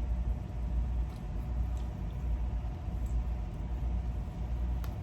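Steady low rumble with a faint, even hum, and a couple of faint clicks near the end.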